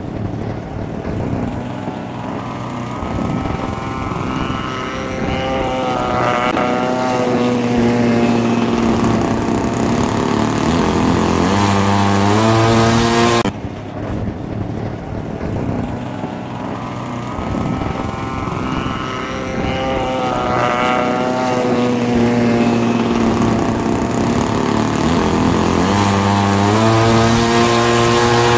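Engine and propeller of an Extra 330L radio-controlled aerobatic plane in flight, its pitch wavering and then climbing as the throttle changes. The sound cuts off abruptly about halfway through and the same passage repeats.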